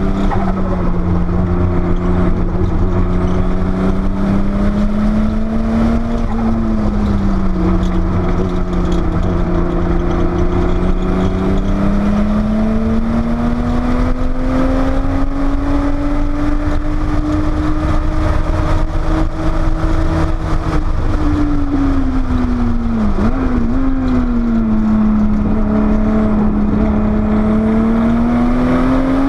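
Porsche 930 Turbo's air-cooled turbocharged flat-six under load on track, heard onboard. Its pitch climbs and falls slowly as the car accelerates and eases off, with a quick drop and recovery about three quarters of the way through.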